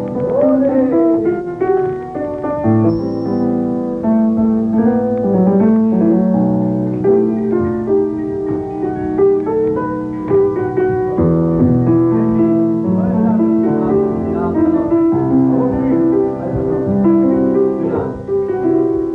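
Piano-led music playing throughout, with sustained chords under moving melody notes.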